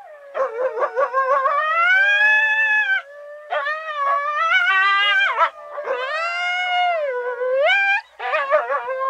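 Recorded coyote howls: four wavering, gliding howls in quick succession, breaking off about every two and a half seconds. The first and last start with short yips, and the third sweeps steeply upward at its end.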